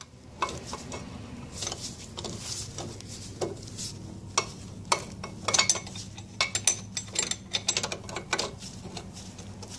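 Irregular small metallic clicks and clinks as the drive shaft of an Evinrude 60 HP outboard gearcase is turned by hand to unscrew the loosened pinion nut. The clicks come more thickly in the second half, over a steady low hum.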